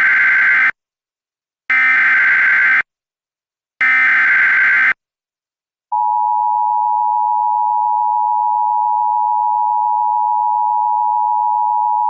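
Emergency Alert System warning opening. It begins with three one-second bursts of SAME header data tones, the first already under way, then the steady two-tone EAS attention signal (853 and 960 Hz) starts about six seconds in. The data bursts carry the coded alert header, and the attention signal announces that an emergency message follows.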